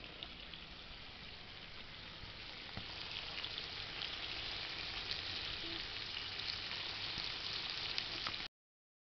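Lote fish curry sizzling in a kadai, a steady hiss with small crackles of hot oil. The oil has separated out, the sign that the curry is cooked. It gets a little louder about three seconds in and cuts off suddenly near the end.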